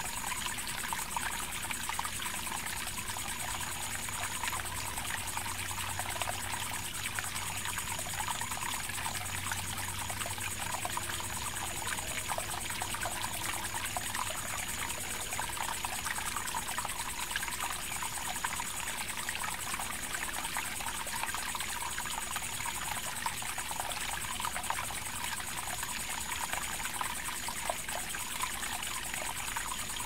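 Water flowing in a small rural irrigation channel, trickling and splashing steadily. A faint high-pitched tone comes and goes every second or two.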